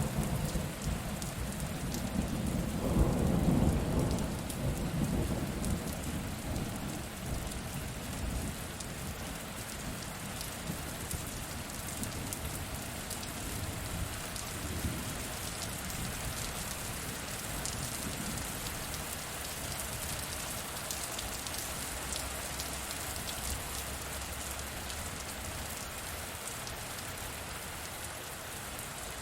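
Steady rain falling, with a roll of thunder that swells a few seconds in and rumbles away, leaving the even hiss of the rain.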